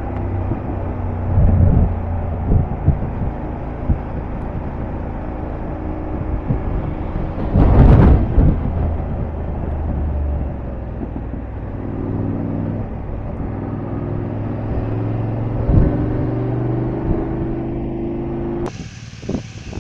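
Motorcycle engine running steadily while riding, under a rush of wind noise, with a louder surge about eight seconds in. Near the end the sound changes abruptly to a thinner, quieter mix.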